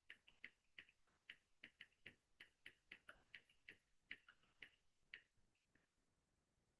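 Faint computer keyboard typing: a run of short irregular key clicks, about three a second, that stops about six seconds in.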